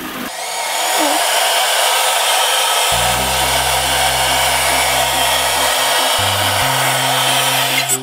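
Dynaking R7 robot vacuum starting to clean: its suction fan spins up in the first second, then runs with a steady, high whooshing hiss.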